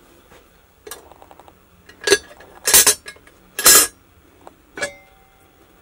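Lid and wire bail handle of a black metal pot clanking and scraping as the lid is lifted off: about five separate metallic knocks, the loudest two about three and four seconds in, the last leaving a brief ring.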